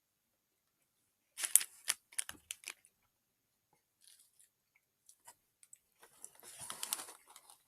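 Crinkling and crunching of a packaged wafer snack: a burst of sharp crackles about one and a half seconds in, a few faint ticks, then a longer, denser crackling near the end.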